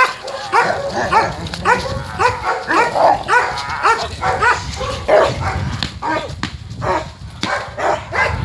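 Leashed police guard dogs barking aggressively at a handler's bite sleeve, a fast run of sharp barks at about three a second.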